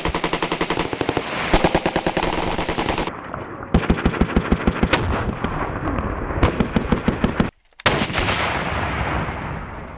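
Machine guns firing in rapid bursts of about ten shots a second, four bursts in turn. Then, about eight seconds in, a single heavy blast with a long rolling echo: a Carl Gustaf 84 mm recoilless rifle firing.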